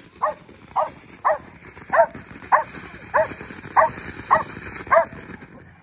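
A dog barking repeatedly at a firework fountain: nine sharp barks, about one every half second. Under them runs the steady hiss of the fountain spraying sparks.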